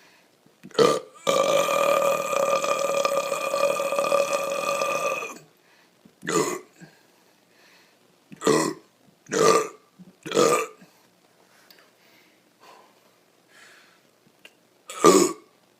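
A man burping on purpose: one brief burp, then one long steady burp lasting about four seconds, then five short burps spaced a second or more apart.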